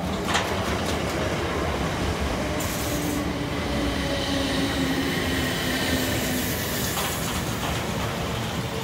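BREL Class 455 electric multiple unit running past along the platform with a steady rumble of wheels on rails. A faint whine slowly falls in pitch as the train comes into the station, and there is a sharp click near the start and another near the end.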